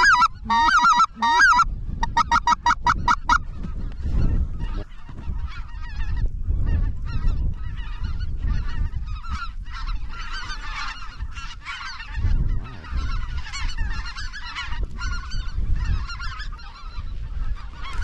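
A flock of greater white-fronted geese (specklebellies) calling: many high, overlapping calls over a low rumble of wind on the microphone. The first three seconds hold a loud run of rapid, evenly spaced calls.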